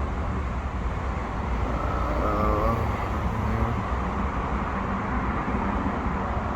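A 1983 Suzuki GS motorcycle engine idling steadily, just restored and with its carburetors not yet adjusted.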